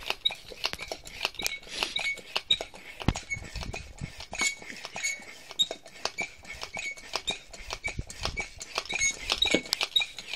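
Foot pump being worked in steady strokes to inflate a 12-inch wheel's inner tube that is bulging out of its tyre. Each stroke gives a short squeak or click, roughly two a second.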